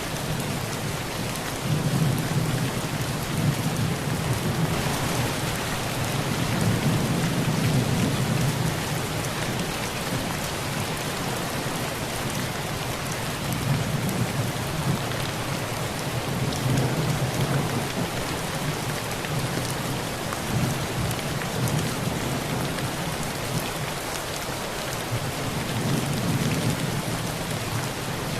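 Heavy rain pouring steadily on a tin roof, with thunder rumbling low underneath in long swells: one from about two seconds in lasting several seconds, and more rumbles around the middle and near the end.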